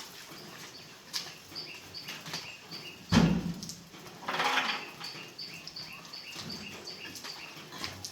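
A single sharp knock about three seconds in, then a brief scraping rasp, from hands-on repair work, over a steady run of short high chirps about three a second.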